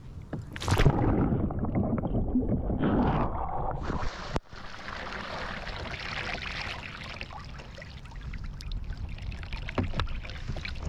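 Kayak capsizing and rolling back up. A splash about a second in, then a few seconds of loud churning water; a sudden break follows, then the splashing and dripping of water as the kayak and paddler come back upright.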